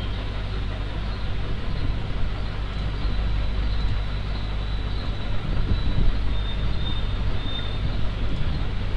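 Steady, low rumbling background noise with no distinct events.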